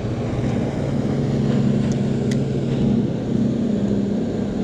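Motorboat engine running with a steady low hum, over wind and water noise; a couple of faint clicks about two seconds in.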